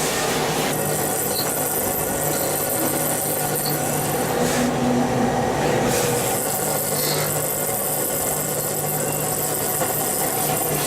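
Goodway TS-100 series CNC lathe machining a part: a steady mechanical whir with a dense cutting and coolant hiss and a low hum underneath.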